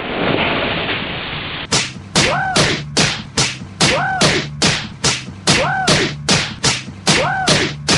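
The fading rumble of a big explosion gives way, after under two seconds, to cartoon face slaps repeating about three times a second. A short rising-and-falling cry recurs every couple of seconds, as if one short slap clip is looped.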